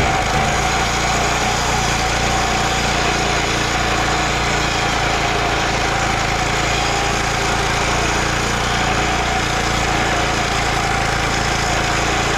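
Gas-powered concrete saw running steadily while cutting control joints into the fresh slab with a newly fitted blade, a steady whine over the engine.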